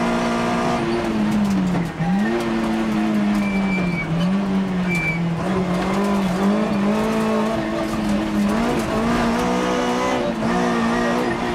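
Rally car's engine heard from inside the cockpit at full stage pace, its note dropping sharply about two seconds in and then rising and falling with lifts and gear changes. Two brief high tyre squeals come in the middle.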